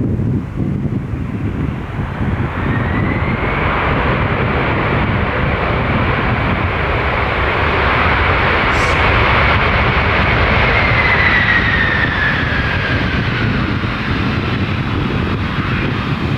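Jet airliner passing close by: a high engine whine builds, then drops in pitch as the plane goes past, over a low rumble with wind buffeting the microphone.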